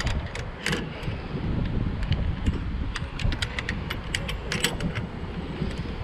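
Wind rumbling on the microphone, with a run of light metallic clicks and clinks, thickest in the middle.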